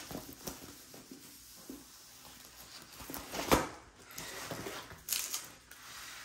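Rolled diamond painting canvas being unrolled on a wooden table: rustling and crinkling as it is handled, with a sharp slap about three and a half seconds in as it falls open, then another brief crinkle about five seconds in.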